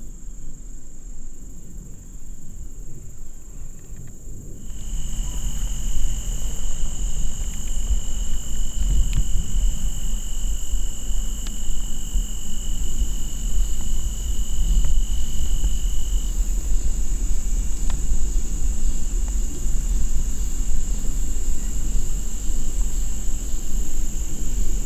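Steady evening chorus of crickets and other insects: a continuous high-pitched trill, joined about five seconds in by a second, lower steady trill that fades later on. A low rumble runs underneath.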